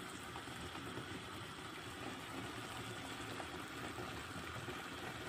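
Chicken breast in a cherry-tomato sauce simmering in a pan, with a steady soft bubbling.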